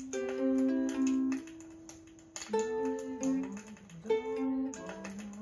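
Ukulele played slowly by a learner: chords plucked about three times, near the start, two and a half seconds in and about four seconds in, each left to ring out.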